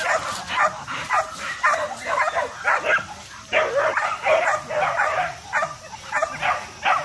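Young hunting dogs yelping and barking in quick, overlapping short calls, several a second.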